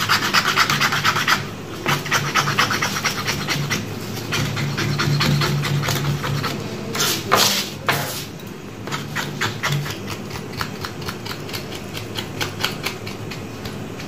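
Charred hair and skin being scraped off a singed goat trotter in quick repeated rasping strokes, with one louder rasp about halfway through.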